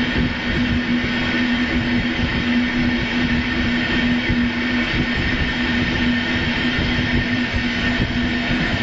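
An Intercity train pulling out of a station at low speed, heard from inside a coach: rolling wheels and running noise, with a steady hum and irregular low knocks from the track.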